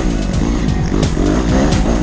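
Honda CRF dirt bike's single-cylinder four-stroke engine revving up and down over and over as it is ridden along a trail, the pitch rising and falling several times a second under quick throttle changes.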